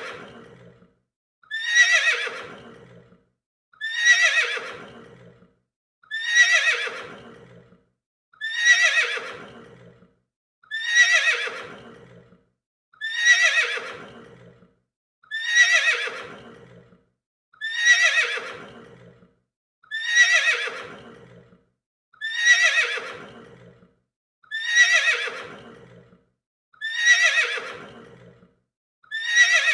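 Horse neighing: the same whinny repeated over and over, about once every two and a quarter seconds, each call starting high, sliding down in pitch and fading out.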